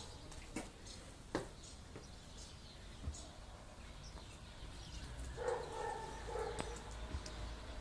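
A pet animal calling several times in short pitched cries about five seconds in, with a few sharp knocks earlier on.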